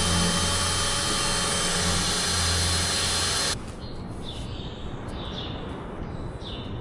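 Power drill running steadily while drilling a hole, then stopping abruptly about three and a half seconds in.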